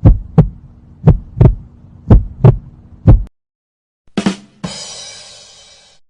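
Heartbeat sound effect: paired low lub-dub thumps about once a second, which stop just after three seconds in. About a second later comes a short hit, then a ringing crash that fades out over about a second and a half.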